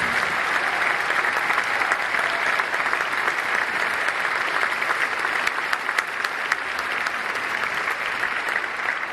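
Concert audience applauding, a dense steady patter of many hands clapping that begins to fade near the end.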